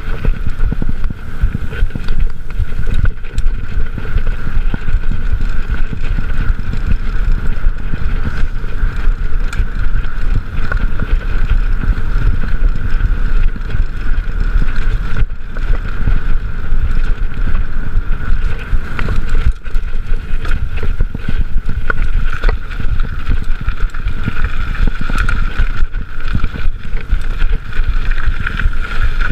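Trek mountain bike ridden fast over a dirt single track: a constant rumble of tyres and frame over the bumps, with many small knocks and rattles, and wind buffeting the chest-mounted camera's microphone. A steady high tone runs underneath.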